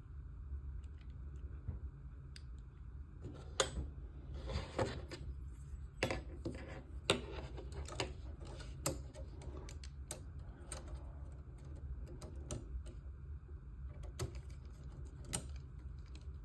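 Irregular clicks and light taps of small model-kit parts and a screwdriver being handled as a piece is fitted and screwed onto the frame, with a few sharper clicks between about 3 and 9 seconds in. A steady low hum runs underneath.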